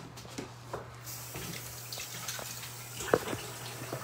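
Kitchen faucet running into the sink for hand-washing. The water comes on about a second in as a steady hiss, with a few small knocks.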